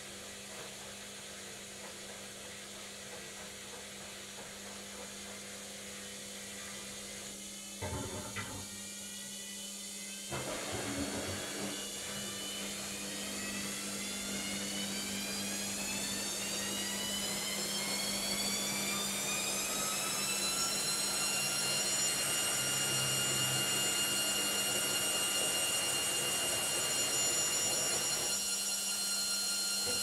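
Logik front-loading washing machine starting its final spin: a couple of knocks as the drum starts turning, about 8 and 10 seconds in, then the motor's whine rises steadily in pitch and grows louder, levelling off at full spin speed about 21 seconds in, over a steady low hum.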